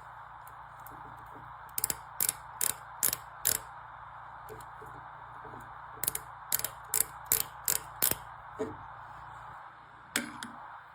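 Sharp mechanical clicks in two quick runs, first five and then six at about two to three a second, with one more near the end, over a steady machine hum.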